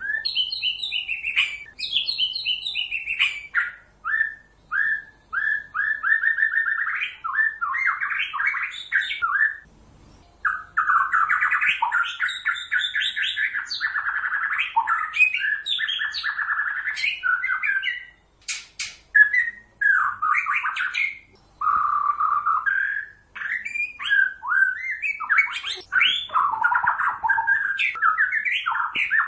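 White-rumped shama (murai batu) singing in full, continuous song: a fast, varied run of clear whistled phrases and chattering notes, broken by a few short pauses.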